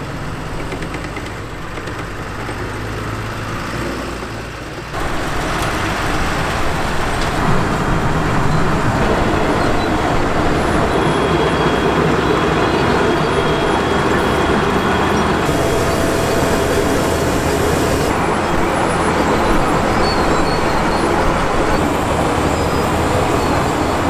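Wirtgen W210 Fi cold milling machine at work removing old tarmac, its 755 hp engine and milling running as a steady, dense machine noise, with a tractor's engine alongside. The noise gets louder about five seconds in.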